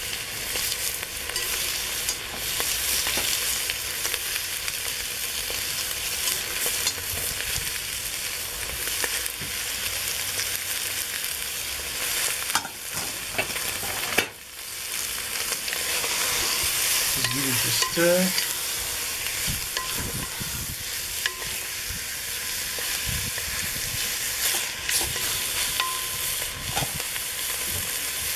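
Mutton pieces sizzling as they brown in a hot cast-iron potjie pot over a wood fire, a steady frying hiss that drops out briefly about halfway through and then carries on.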